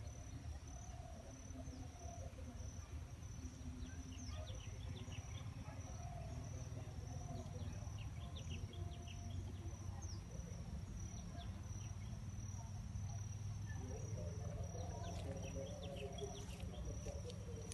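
An insect shrilling on one steady high note, with scattered short bird chirps over a low rumble.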